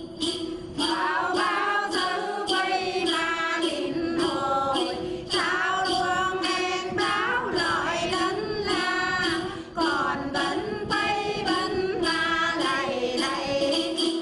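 Then singing: a woman's voice sings a then melody, coming in about a second in, over a cluster of jingle bells shaken in a steady rhythm, about two to three shakes a second, with a steady low tone beneath.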